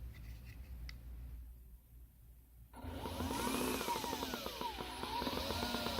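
Enertion Raptor 2 electric skateboard motors making an odd noise: after a faint low rumble, a whine starts suddenly near the middle with a fast buzzing rattle under it, its pitch sweeping up, then down, then up again as the motor speed changes.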